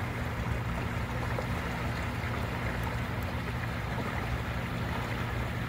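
Steady rush of flowing water, with a constant low machine hum underneath.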